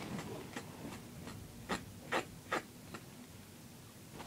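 A series of short, quiet scratchy rubbing strokes, three of them louder from the middle on.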